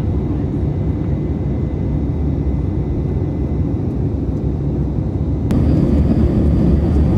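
Steady low rumble of a jet airliner's cabin in flight: engine and airflow noise heard from inside by the window. About five and a half seconds in it cuts abruptly to a slightly louder stretch of the same rumble.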